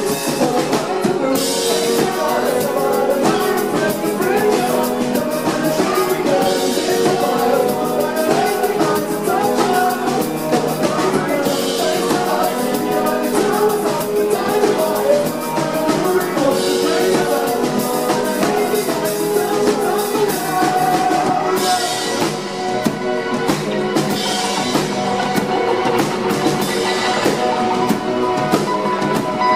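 A live band playing a song: drum kit keeping a steady beat, electric guitar and keyboard, with sung vocals.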